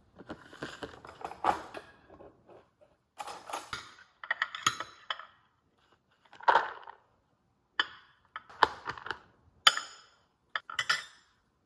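Dishes and utensils clinking and knocking as they are handled, in a dozen or so short, irregular clatters with brief pauses between them.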